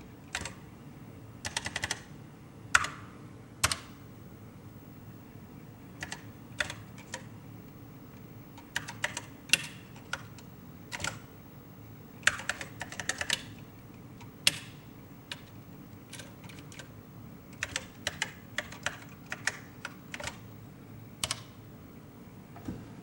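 Keystrokes on an Apple 1's keyboard: irregular runs of key clicks with pauses between them, a few strokes louder than the rest.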